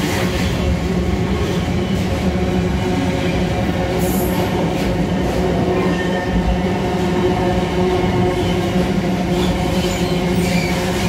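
Freight train wagons rolling steadily past: a continuous rumble of steel wheels on rail, with a brief high-pitched squeal about four seconds in.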